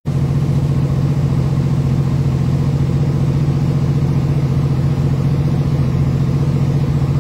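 An engine running steadily at idle: a loud, even low hum with a fast, regular pulse.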